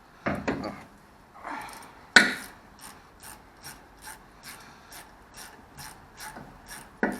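A socket ratchet wrench clicking in an even run of about two or three clicks a second, after a few knocks of metal tools, the loudest a sharp knock a little over two seconds in.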